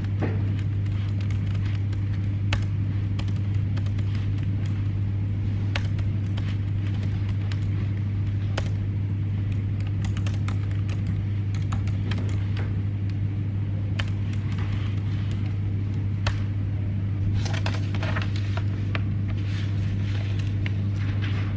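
A steady, loud low electrical-sounding hum throughout, with sparse soft clicks of laptop keyboard typing over it. Near the end, paper pages rustle as they are turned.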